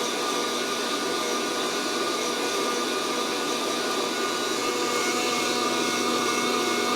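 Fresh Roast SR800 hot-air coffee roaster running steadily, its fan blowing hot air through the tumbling beans in a steady whoosh with a faint motor hum. There is no cracking yet: the beans are twelve minutes into the roast and have not reached first crack.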